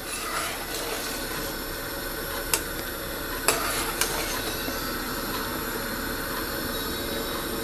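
A metal spoon stirring soup in a stainless-steel pot, clinking against the pot three times, over a steady hiss as the pot heats up before boiling.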